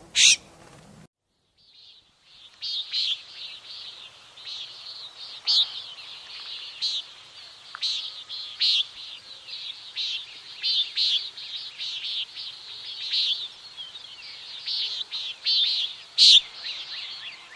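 Common nighthawk giving its short, buzzy nasal 'peent' calls, repeated irregularly and sometimes overlapping. The calls start after a brief silence near the start, and a louder call comes near the end.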